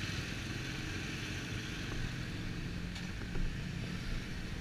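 Motorcycle engines idling steadily, a low even hum with a faint hiss over it.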